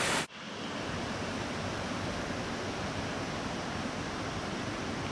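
Steady rush of stream water over rocks. A louder rush breaks off just after the start and is replaced by a softer, even one.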